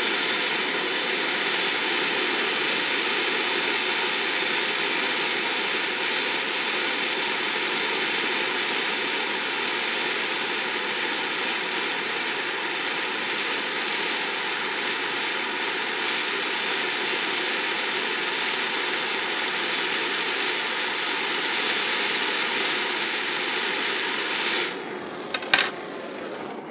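Handheld gas blowtorch burning with a steady hissing roar as it heats an aluminium wok so that zinc-based aluminium welding rod melts into the drill holes. It cuts off about two seconds before the end, followed by a couple of clicks.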